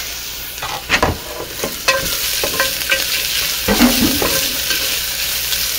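Food sizzling on a barbecue grill, a steady crackling hiss with scattered light clicks and knocks of utensils.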